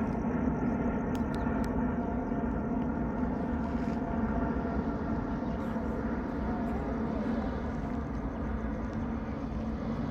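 Jet noise from an Airbus A350-900's Rolls-Royce Trent XWB turbofans as the airliner climbs away after takeoff: a steady rumble with faint steady tones over it, easing slightly toward the end.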